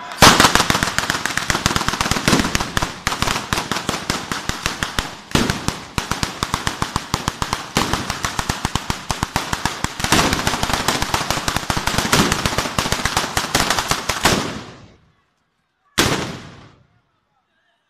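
Italian street firework 'batteria': a chain of firecrackers laid along the road going off in rapid succession, many sharp bangs a second in one dense crackling run with louder surges. It breaks off about fifteen seconds in, with one more short burst a second later.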